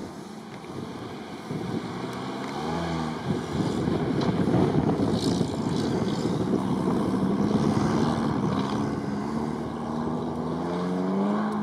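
UAZ off-road vehicle's engine revving hard on the course, its pitch rising and falling under heavy load, loudest through the middle and climbing again near the end.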